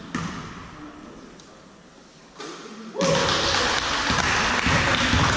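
Basketball thuds on a hardwood gym floor, echoing in the hall; about three seconds in, a loud steady wash of noise suddenly sets in.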